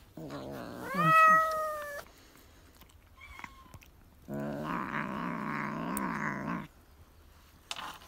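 Domestic cat yowling twice while a tick is pulled from its fur with tweezers: a loud call rising in pitch, then a longer, lower drawn-out yowl.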